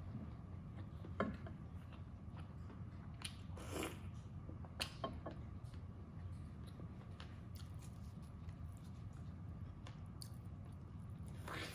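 Close-miked chewing of a mouthful of soft braised pork meatball: small wet mouth clicks and smacks, a few sharper ones, over a steady low hum. A brief rustle near the end.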